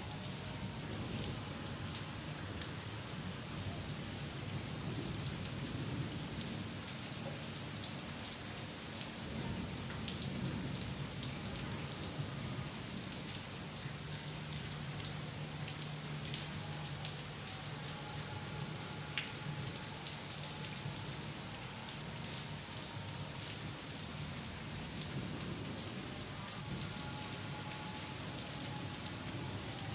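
Heavy rain falling steadily on leaves and the ground, a constant hiss with many individual drops ticking close by.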